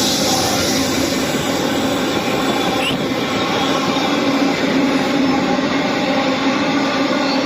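A train running past on the rails: a steady loud rumble of wheels with a constant low hum.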